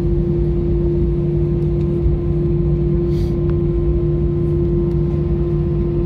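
Steady cabin noise of a jet airliner taxiing after landing: a low rumble with a constant droning hum.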